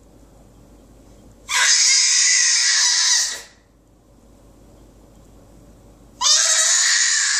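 A baby shrieking: two long, loud, high-pitched screeches a few seconds apart, each starting lower and jumping up in pitch.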